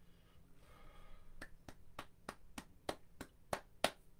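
A run of about nine sharp taps or clicks, evenly spaced at roughly three a second, getting louder toward the end.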